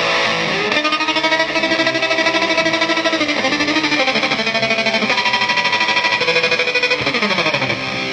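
Electric guitar played through an EarthQuaker Devices Hummingbird tremolo pedal, the notes chopped in a fast, even pulse. The pulsing stops shortly before the end, and a note slides down in pitch.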